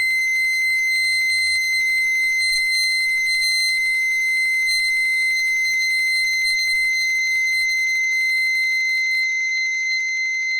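Steady, piercing high-pitched electronic tone held without a break, in the manner of an alarm. A faint low background under it cuts out about nine seconds in.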